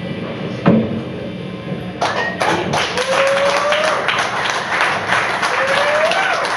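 The last sustained tones of a live improvised music set end with a sharp knock. About two seconds in, an audience breaks into applause with a few whoops.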